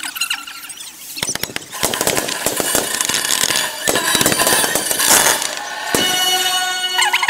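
Fireworks display: a fast, dense run of bangs and crackles starting about a second in, with high squealing tones near the end.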